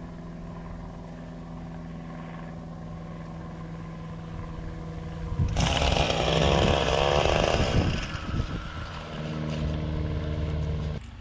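Gas string trimmer's small engine running steadily at low speed, then revved up loudly for a few seconds from about halfway through, settling back to a steadier lower run near the end.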